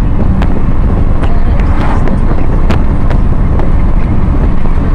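Loud, steady wind rumble buffeting the microphone, with scattered sharp clicks.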